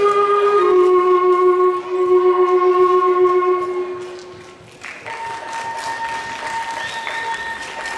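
Christmas carol melody played as clean, held electronic tones from computer keyboards and laptops, each note stepping down to the next, fading out about four seconds in. About a second later a noisy wash comes in under a single long held note.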